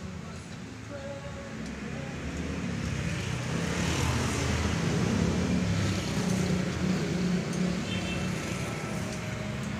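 A motor running in the background, a low steady hum that builds over the first few seconds and eases a little near the end.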